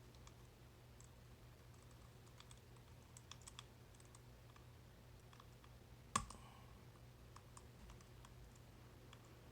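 Faint small metallic clicks of a pick working the pins of a tubular lock, with one sharper click about six seconds in.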